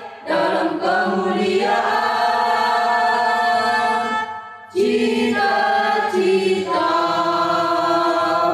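Mixed choir of boys and girls singing the closing lines of a school march in long held chords. The singing breaks off briefly about halfway through, then comes back for a final held chord that ends near the end.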